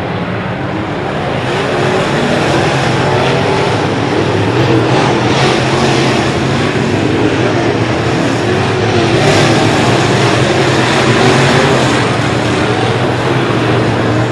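Several dirt-track race cars' engines running hard together as the pack laps the track, their pitches wavering and overlapping and swelling as cars come by close.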